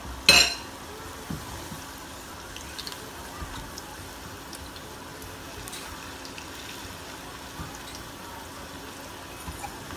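Pakoras frying in hot oil in a stainless steel pan, a steady sizzle with small scattered pops. Near the start, one sharp metal clink, a fork striking the pan as the pakoras are turned.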